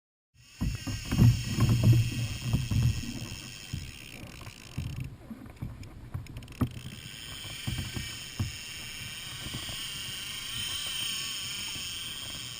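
Water sloshing and slapping against a plastic kayak hull, with uneven knocks and thumps that are heaviest in the first three seconds.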